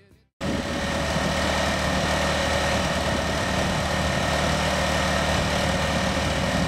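Farmall 140 tractor's freshly swapped-in engine running steadily, starting suddenly about half a second in; the owner judges it to run real good.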